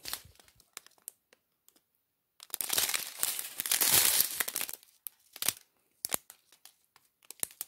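Clear plastic zip bags of diamond painting drills crinkling as they are handled, with one longer stretch of crinkling a few seconds in and scattered light rustles and clicks around it.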